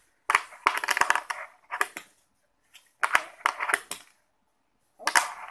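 People's Republic 34-mm wooden fingerboard with bearing wheels clattering, rolling and scraping across a rough concrete paver block. It comes in three bursts: a long one near the start, another about three seconds in, and a short one near the end.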